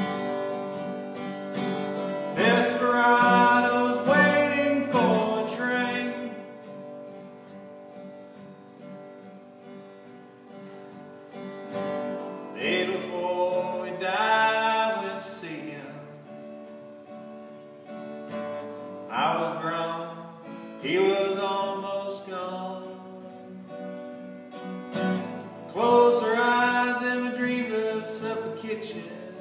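Acoustic guitar played solo, loud strummed chords in bursts every several seconds with quieter ringing notes and picking between them.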